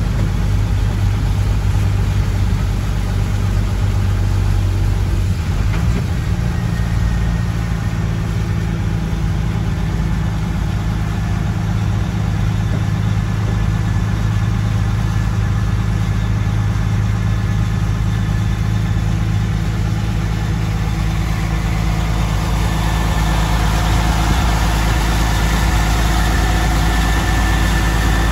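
Road train's engine heard from inside the cab, running steadily at low speed; its note shifts once about six seconds in. Over the last few seconds a hiss of tyres and spray through water on the road rises.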